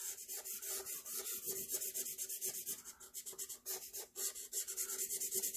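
Felt-tip marker scribbling rapidly back and forth on paper as it colours in a shape: a dry, scratchy rubbing at several strokes a second.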